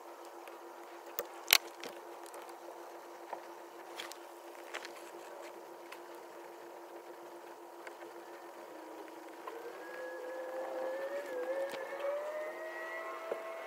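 A steady low hum, broken by one sharp click about a second and a half in and a few faint ticks. From about ten seconds a wavering whine rises slowly in pitch and holds until near the end.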